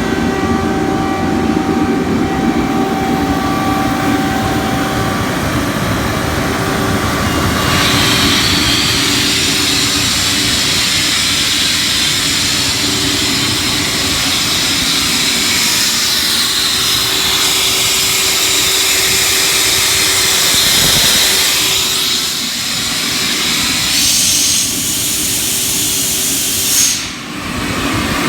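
Kaeser SK-25 20 hp rotary screw air compressor running with a steady hum. About eight seconds in, a loud hiss sets in over it. Near the end the sound briefly swells and dips.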